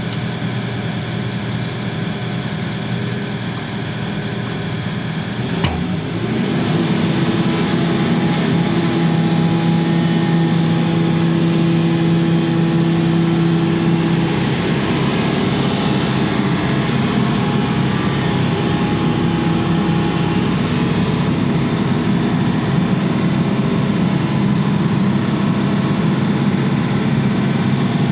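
Diesel engine of a piece of construction equipment running steadily. After a sharp knock about six seconds in, it steps up to a louder, higher-pitched run and holds there.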